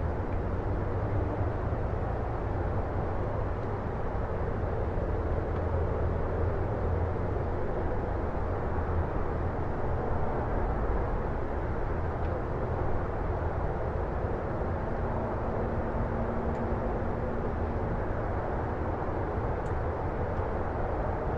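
Distant city ambience heard from a residential area at night: a steady low rumble of far-off traffic and city hum, with no distinct events standing out.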